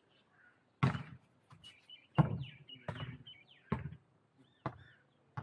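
Volleyball thumps: about six sharp hits of the ball, unevenly spaced, the first two loudest. Birds chirp between them.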